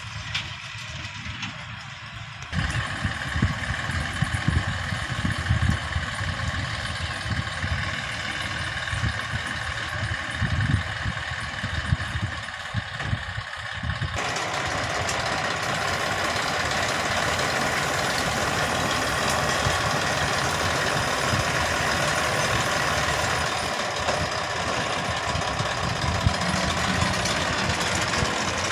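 Massey Ferguson farm tractor's diesel engine running under load as it works across a field pulling a rear-mounted implement. The sound grows louder and closer, changing abruptly about halfway through.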